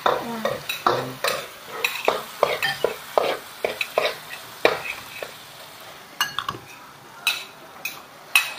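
Beef sizzling in a hot steel wok while a utensil stirs it, scraping and knocking against the pan. The strokes come thick and fast for about five seconds, then thin out.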